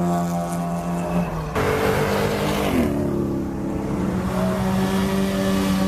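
Car engines running as cars drive past, each held at a steady pitch. About a second and a half in the sound turns suddenly louder and rougher, and a little later the pitch drops as the revs fall.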